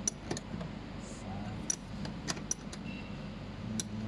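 Steady low hum with about six light, sharp clicks scattered through it, from small objects being handled on a workbench.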